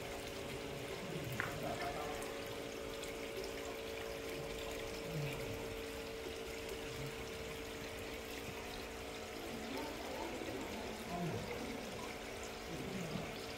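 Water trickling and pouring steadily into a koi pond, over a faint steady hum.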